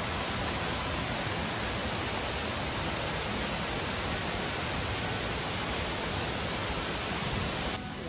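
Kuang Si waterfall's tiered cascades rushing: a loud, steady, dense roar of falling water. It drops noticeably in level just before the end.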